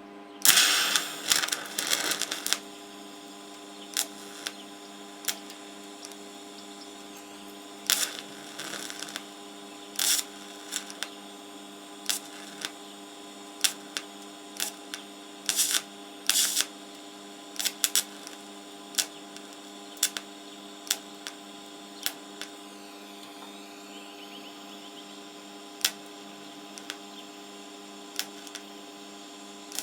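TIG welder on a low-amp setting, striking the arc in short bursts that crackle over a steady electrical hum. The arc is being laid in brief dabs to bead around a hole in a thin, rusty steel fuel tank.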